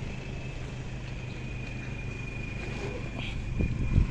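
Toyota HiAce ambulance idling: a steady low engine hum with a thin, steady high whine over it, and two soft thumps near the end.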